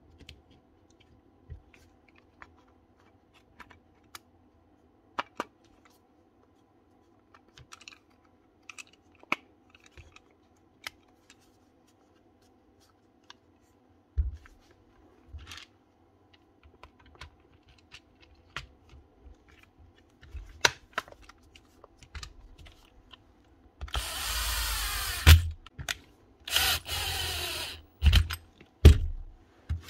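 Light clicks and taps of a cordless drill being handled, then the drill, fitted with a new motor and new brushes, run twice for about a second and a half each, with its electric brake stopping it each time, followed by a few thumps.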